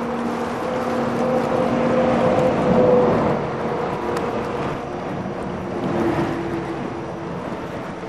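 A motor engine humming steadily; it grows louder for the first three seconds or so, then shifts to a lower, steadier note. Wind rushes on the microphone throughout.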